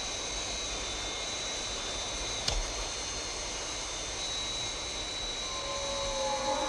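Science-fiction spacecraft engine sound effect: a steady jet-like rush with a high whistling whine, broken once by a sharp click about two and a half seconds in. Music begins to swell near the end.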